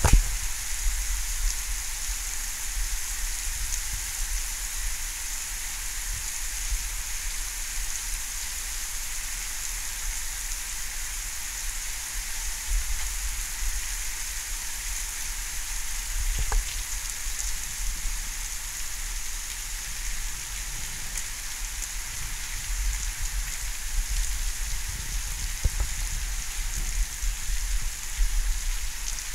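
Steady rain falling, an even hiss with a low rumble underneath and a few faint taps.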